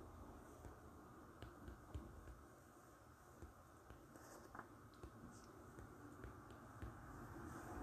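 Near silence: faint room hiss with soft, irregular taps of fingertips on a phone's touchscreen keyboard during typing.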